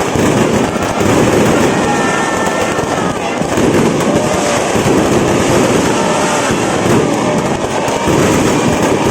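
Fireworks going off in a dense, continuous crackle of bursts, loud and without a pause.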